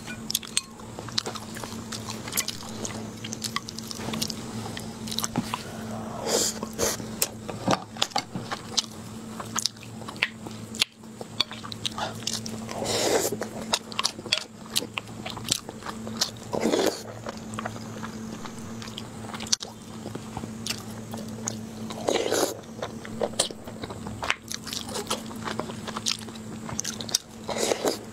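Close-up eating sounds: chewing and biting on red-braised pork belly and rice, with wet mouth sounds and a wooden spoon and chopsticks clicking against a porcelain bowl. A steady low hum runs underneath.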